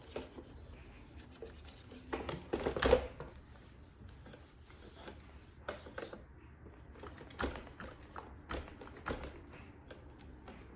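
Scattered light clicks, taps and rubbing from hands handling a Roborock S8 robot vacuum's plastic body, as when its sensors are wiped clean, with a louder cluster of knocks about two to three seconds in.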